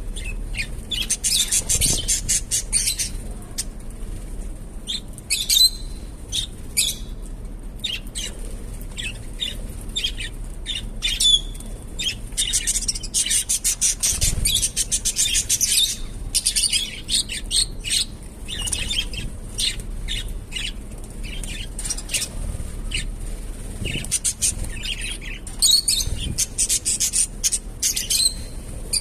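Small pet parakeets chattering in bursts of rapid high chirps and squawks, with short pauses between.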